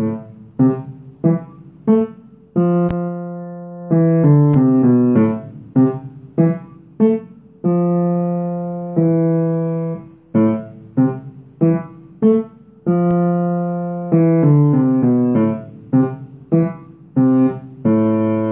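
Piano played with both hands in the low register, around the A below middle C: short detached notes in a steady pulse, broken a few times by longer held notes.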